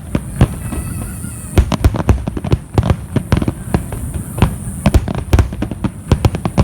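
Aerial fireworks bursting in a rapid, irregular barrage, several sharp bangs a second over a low rumble.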